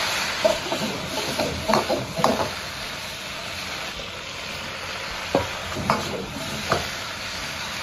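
Green beans sizzling in hot oil and bean paste in a wok as they are stir-fried. The metal wok ladle scrapes and knocks against the wok a few times.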